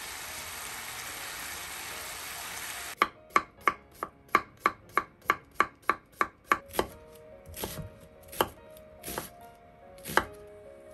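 Pork and onions sizzling in a frying pan. About three seconds in, this gives way to a kitchen knife slicing cucumber on a wooden cutting board, about three quick cuts a second. These slow to a few single cuts, about one a second, as an onion is cut near the end.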